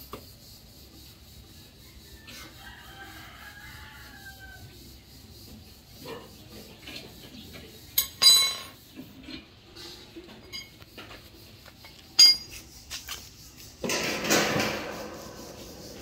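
Steel crank rod of a scissor jack being worked under a car, with a sharp metallic clank about 8 seconds in, another about 12 seconds in, and a rustling scrape near the end. A rooster crows faintly a few seconds in.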